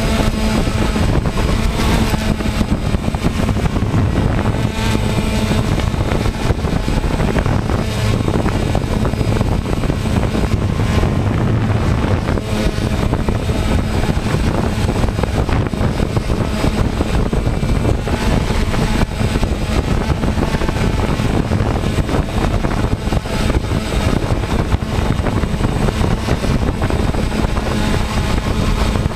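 DJI Phantom quadcopter's propellers and motors buzzing steadily in flight, with wind on the microphone.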